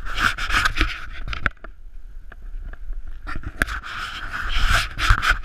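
Skis scraping and chattering over tracked, packed snow as the skier descends, a rough irregular hiss. It drops away for about two seconds midway, then comes back as loud.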